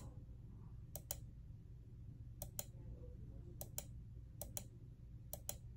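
Computer mouse clicking: about six quick paired clicks, roughly one pair a second, as each next listing photo is brought up.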